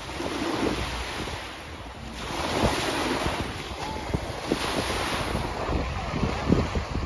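Small waves of Lake Nicaragua breaking and washing up on a dark-sand beach, with wind buffeting the microphone.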